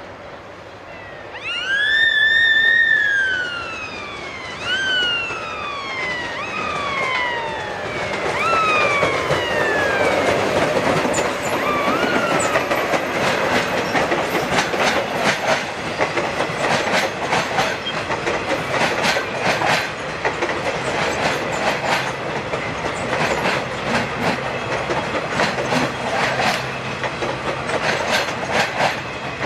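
Metrorail electric multiple-unit passenger train running past close by. Over the first several seconds come a few high whines that each swoop up and then slide down in pitch. After that the wheels clatter in a fast, steady clickety-clack over the rail joints as the long train goes by.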